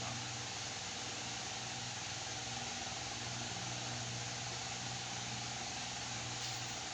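Steady background noise: an even hiss with a low hum underneath, unchanging throughout, with no distinct knocks or cracks.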